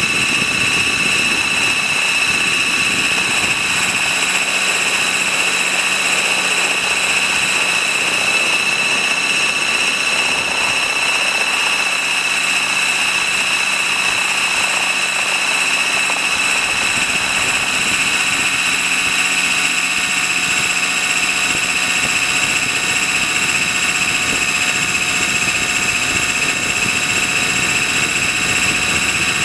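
Trex 600 RC helicopter in flight, heard from a camera mounted on its own landing skid: a steady high-pitched whine of its drivetrain and rotors, holding level throughout.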